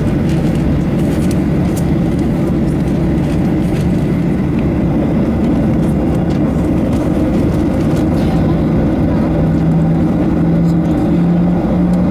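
Boeing 737-800 cabin noise during taxi: the CFM56-7B jet engines give a steady low rumble heard through the cabin, with a low hum that rises slightly in pitch over the last few seconds.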